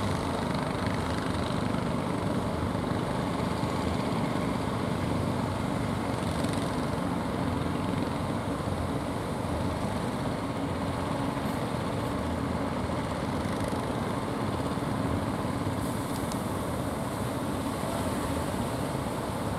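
Steady drone of fishing-boat engines motoring in through the surf, over the wash of breaking waves.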